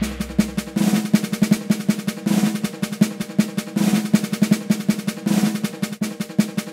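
Background music: a rapid snare drum roll over a held pitched note. The low tail of a gong stroke dies away in the first second.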